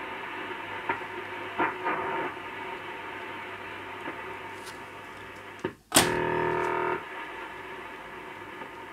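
Grundig Satellit 3400 Pro short-wave receiver hissing with static while being tuned between stations. About six seconds in the sound drops out briefly, then a loud buzzing tone lasts about a second before the hiss returns.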